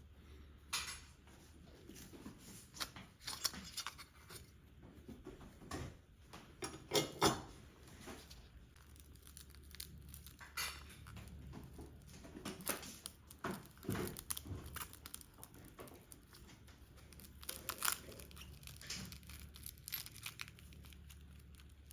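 Cracked screen glass being pried and peeled off a car radio's display with a phone-screen repair tool: irregular clicks, crackles and scrapes, louder about a third of the way in and again past the middle.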